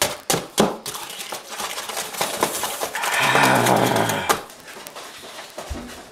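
Utensil stirring and knocking against a mixing bowl: a few sharp knocks at the start, then fast clattering, with a steady buzzing stretch of about a second in the middle.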